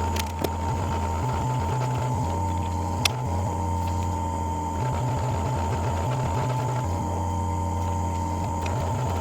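Drill press running steadily, with a low hum and a thin whine, while pin holes are drilled through stabilized maple knife-handle scales. Two sharp clicks sound, one about half a second in and one about three seconds in.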